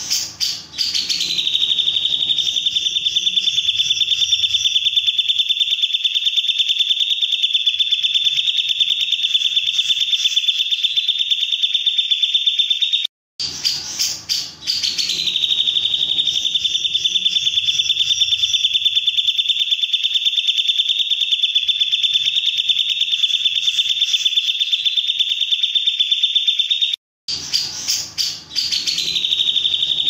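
Lovebird's long ngekek: a high, very rapid buzzing trill held on one pitch for about thirteen seconds at a stretch. It breaks off briefly about 13 seconds in and again near the end, and each restart opens with a short spell of lower chatter.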